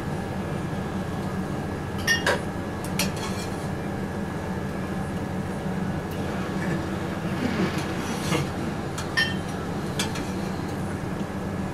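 Metal tongs clinking a few times against a stainless stock pot and frying pan as cooked pasta is lifted across, over the steady drone of a commercial kitchen's ventilation.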